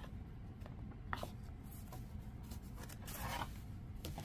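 Soft paper scraping and rustling as an ink pad is rubbed along the edge of a paper card and the papers are moved about on the desk, with a few light clicks; the longest scrape comes about three seconds in.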